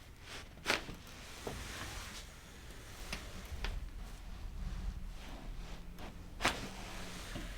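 Sharp joint pops during a chiropractic adjustment: two loud cracks, one about a second in and one near the end, with a few fainter clicks between them over soft rustling and handling on the treatment table.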